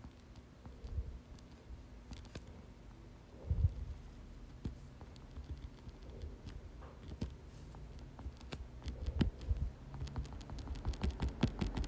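Faint, irregular clicks and taps over a low steady hum, with a low thud about three and a half seconds in and a quicker run of clicks near the end.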